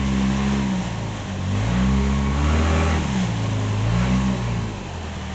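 Motorboat engine revving up and easing off several times, its pitch rising and falling, over a steady hiss of water and wind.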